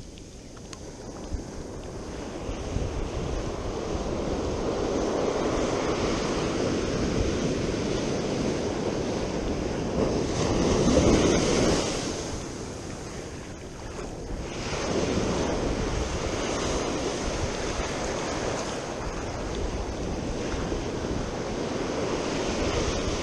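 Ocean surf breaking and washing up the beach, with wind rumbling on the microphone. The surge swells and fades, loudest about halfway through, easing off briefly, then building again.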